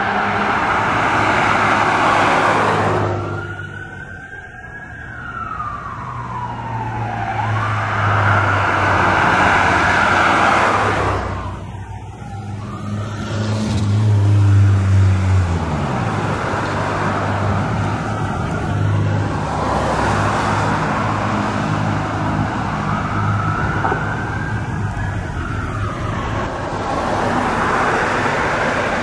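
Fire ladder truck responding with its siren wailing, the pitch rising and falling over and over, with long low steady tones from the truck underneath for several seconds in the middle.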